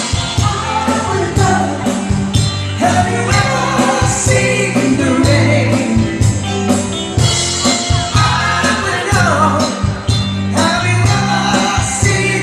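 Live band playing a song, a lead vocalist singing over drums and bass guitar.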